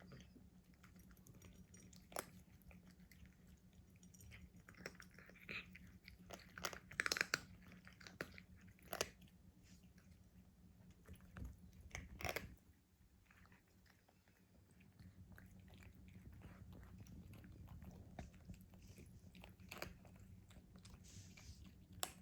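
A cat chewing its food: faint, irregular crunches and clicks, busiest about a third and half-way through, over a low steady hum.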